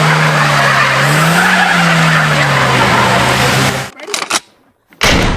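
A hatchback's engine running hard while its tyres spin and slip on ice, its note rising briefly about a second in. It cuts off about four seconds in, and a short loud burst follows near the end.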